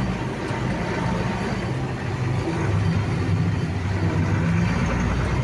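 Farm diesel machinery running steadily: a constant low engine drone with some background noise.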